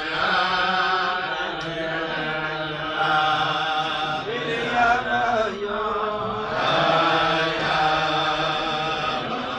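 A group of men singing a Chasidic niggun together, their voices carrying a slow melody with long held notes.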